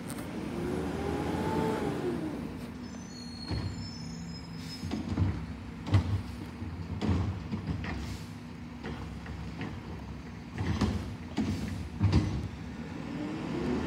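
Garbage truck working at a distance: its engine runs steadily, with a rising and falling hydraulic whine about a second in, then a series of sharp knocks and bangs spread over several seconds as it handles the bins.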